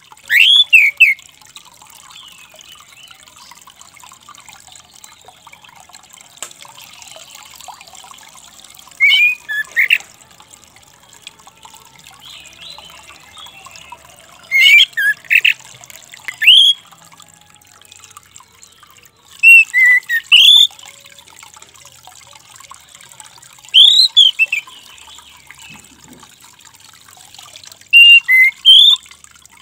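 Orange-headed thrush giving short, squeaky whistled calls: quick rising and falling notes in groups of two to four, repeated about every four to five seconds.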